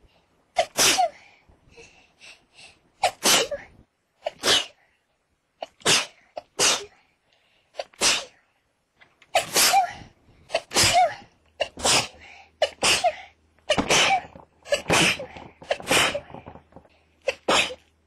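A person sneezing over and over in a fit, about fourteen sharp sneezes with quieter breaths between them. The sneezes come faster towards the end, about one a second.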